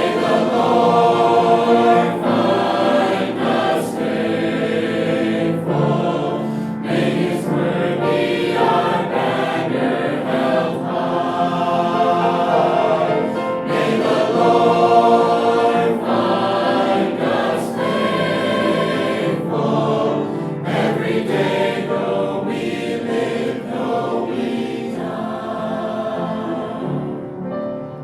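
Gospel choir music: a choir singing over instrumental accompaniment.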